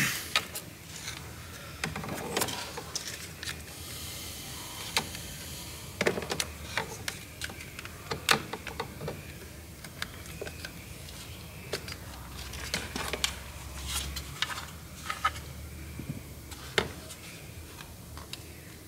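Irregular plastic clicks, taps and scrapes as a power window switch stuck in with glue or double-sided tape is pried out of its plastic door-switch bezel.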